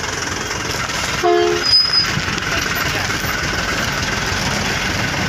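Dump truck's diesel engine running as the truck rolls past, with a short horn blast about a second in and a brief high squeak just after.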